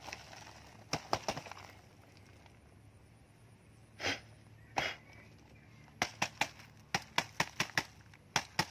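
Sharp clicks and knocks from a snake trap being handled, with two short rushes of noise near the middle and a quick run of clicks, about four or five a second, in the last few seconds.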